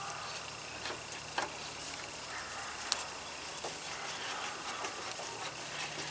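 A hand-held Phillips screwdriver turning a screw into the headlight mount of a 2003 Toyota Tacoma: faint scraping with a few scattered sharp clicks, over a faint steady high tone in the background.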